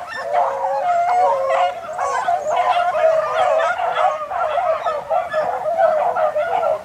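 A pack of beagles baying together, many drawn-out cries overlapping without a break, as the hounds run a rabbit.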